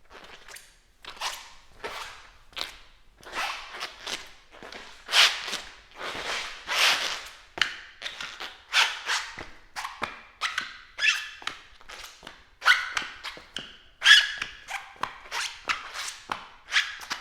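Footsteps in rubber-soled shoes, about two steps a second, each step squealing briefly against the floor; the squeaks sound more clearly pitched in the second half.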